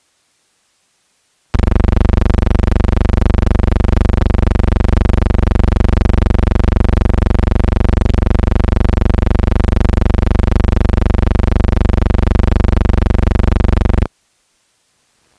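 A loud, steady electronic buzz: one unchanging low pitch with many overtones. It starts suddenly about a second and a half in and cuts off abruptly near the end. It comes from no sound in the pictures.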